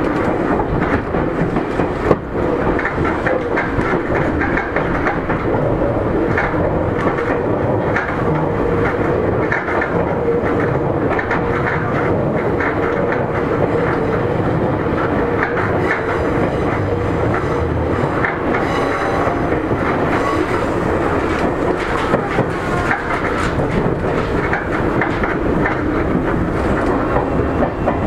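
Seibu 9000 series commuter electric train running between stations, heard from inside the car: a steady rumble of wheels on rail with repeated rail-joint clacks and a faint steady hum.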